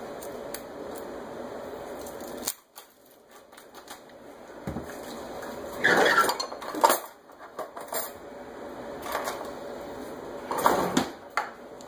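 Kitchen handling sounds: a few sharp knocks and clatters of a plastic tub and utensils on a countertop, loudest around the middle and near the end. Before them, a low steady hum cuts off suddenly a couple of seconds in.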